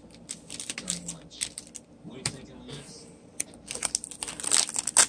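Trading cards and packs being handled: a run of light clicks, taps and rustles, sparse at first and quicker near the end.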